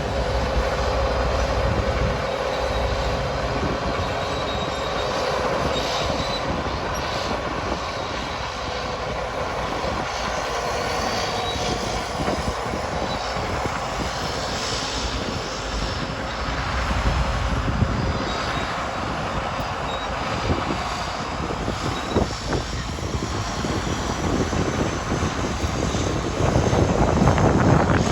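Caterpillar D8 crawler tractor running and pulling a scraper box, its diesel engine working steadily with a thin, high squeal from the steel tracks and running gear. It gets louder near the end.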